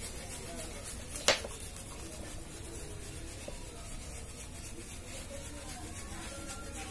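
Faint rubbing and scraping from handling a circuit board, over a steady low hum, with one sharp click just over a second in.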